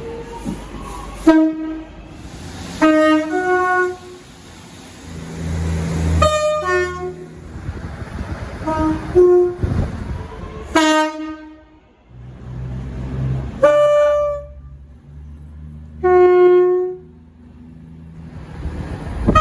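UK train horns sounding about eight short blasts of differing pitch, some as two-note high-low pairs, over the low rumble of the trains' engines.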